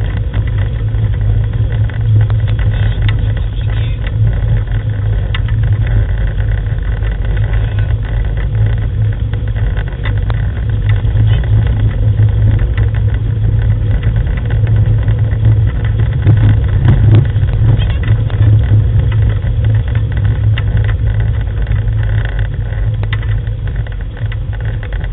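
Steady low rumble of a wheeled rig rolling over a gravel track behind a team of sled dogs, with scattered small rattles and clicks.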